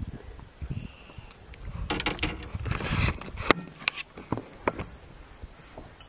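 Handling noise as a freshly caught bass is unhooked in a canoe: scattered clicks and knocks, a burst of rustling and scuffling about two seconds in, and a sharp click about three and a half seconds in.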